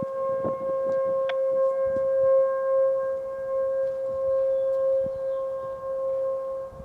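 Outdoor tornado warning siren sounding a steady alert tone for a tornado drill. It holds one pitch while its loudness wavers.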